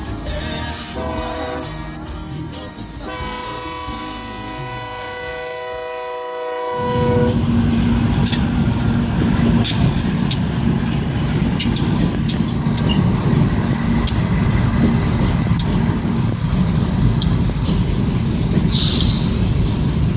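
Music for the first several seconds, ending on a held chord. Then, about seven seconds in, Union Pacific diesel locomotives and a covered hopper car pass close by: a loud, steady engine rumble with sharp wheel clicks over the rail joints and a short hiss near the end.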